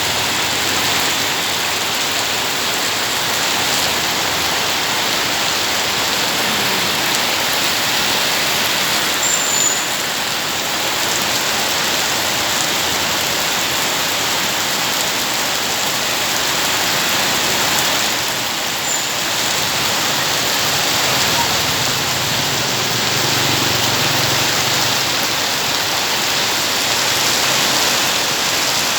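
Steady rain falling, an even hiss of water throughout.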